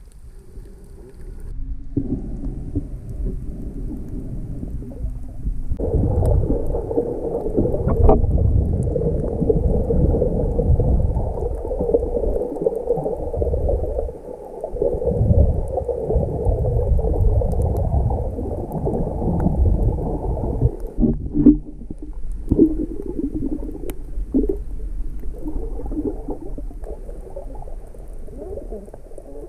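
Muffled underwater noise picked up by a camera in a waterproof housing: water rushing and sloshing past the case, with low rumbles, and nothing clear above the low range. It is loudest for a long stretch in the middle and goes uneven and choppy near the end.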